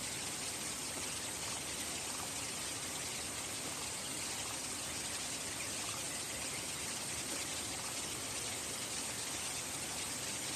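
Steady rain, an even hiss with no single drops or breaks standing out.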